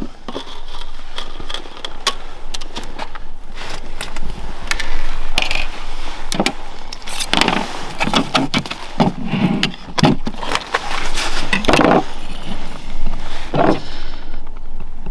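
Close clicks, knocks and scrapes of ice-fishing gear being handled on a hard plastic lid: the lid being opened, then a wooden rod, line spool and knife being set down and moved about. The sharp knocks come irregularly, several a second at times.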